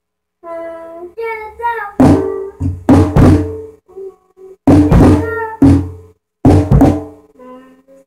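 Acoustic drum kit hit hard in irregular strokes, about seven from about two seconds in, with a child's high voice singing in sliding notes between and under the hits.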